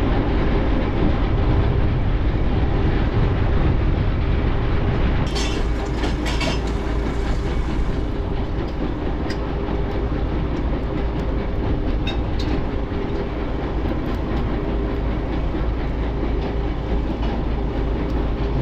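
Pump station pumping out: a loud, constant mechanical drone with a steady hum, likened to really bad techno.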